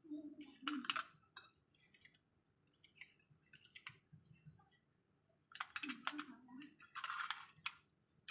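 Kitchen scissors snipping green onion into small pieces: a run of crisp, irregularly spaced snips, with a pause of about a second just past the middle.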